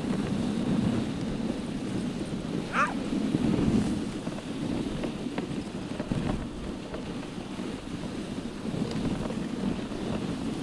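Wind buffeting a GoPro's microphone, with the rushing of a dog sled running over snow. A brief high squeak comes about three seconds in.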